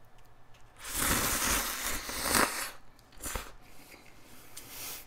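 Close-miked slurping of shrimp cup ramen noodles: one long slurp of about two seconds, then a short slurp and a softer sip near the end.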